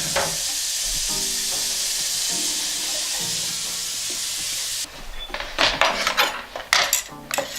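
Kitchen tap running full onto a cutting board as it is rinsed, a steady rushing spray that cuts off about five seconds in. Then the board and dishes clatter in a quick run of knocks as it is set down and handled.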